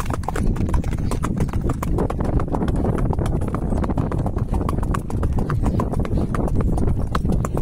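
Horse hooves clip-clopping on a dirt track, heard from the saddle: a rapid, continuous run of hoofbeats over a steady low rumble.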